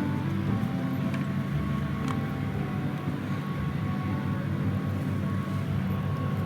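A steady low mechanical hum, like a motor running at an even speed, with a few faint clicks over it.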